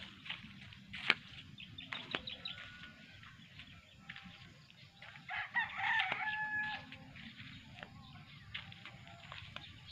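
Rooster crowing once, a single long call a little past halfway through, with a few sharp clicks before it.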